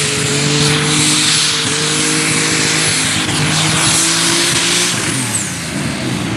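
Open super stock pulling tractor, a Case IH, running flat out as it pulls the sled down the track, with a high whine over the engine. About five seconds in the engine lets off and the whine falls away as the pull ends.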